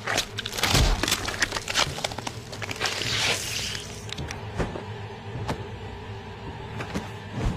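Film sound effects: a rapid series of thuds and crashing impacts over a low steady music drone, with a burst of harsh hissing noise about three seconds in.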